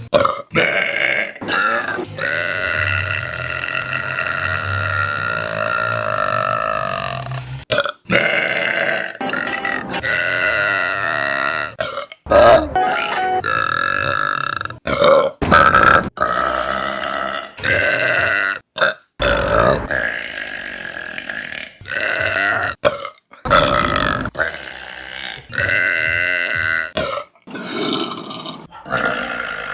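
A string of women's burps, one after another with abrupt cuts between them. Several are long and drawn out, the longest lasting about five seconds near the start.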